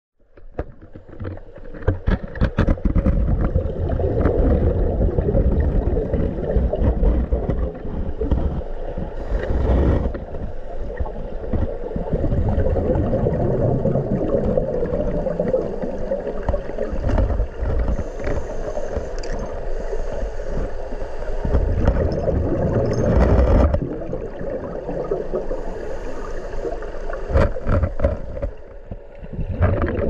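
Turbulent stream water in a waterfall plunge pool, heard underwater: a steady churning rumble with scattered clicks and knocks, swelling briefly twice.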